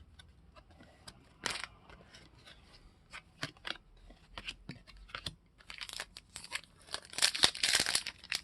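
Trading cards being handled and flipped through by hand: scattered sharp snaps and slides of card stock, growing busier with a longer crinkling rustle near the end.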